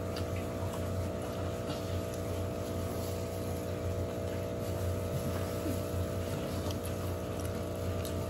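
Steady mechanical hum made of several steady tones with a low drone, with faint scattered clicks and rustles from eating with plastic-gloved hands.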